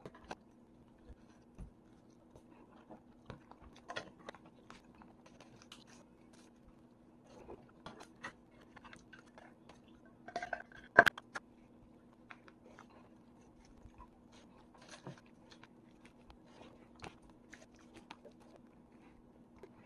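A person eating: chewing, with small clicks of chopsticks against plastic food containers and a tuna can, and a louder clatter of handling about halfway through. A faint steady hum runs underneath.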